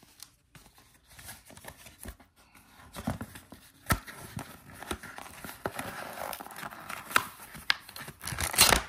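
A watch band's cardboard and paper packaging being handled and torn open: scattered taps and rustling, with a louder rip near the end.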